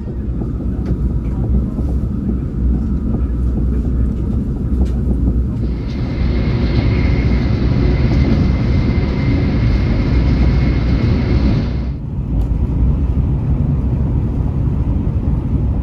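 KTX-Cheongryong high-speed train running at close to 300 km/h, heard from inside a passenger car as a steady low rumble. About six seconds in, a hiss with a faint high tone joins the rumble and cuts off suddenly about six seconds later.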